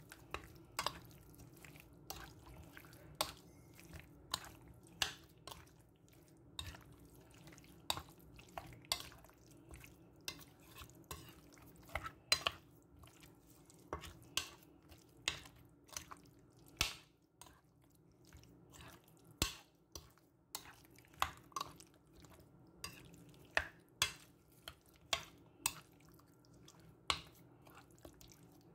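Raw chicken pieces being mixed through a thick yogurt and spice marinade: irregular sharp wet clicks and squelches, one or two a second, over a faint steady hum.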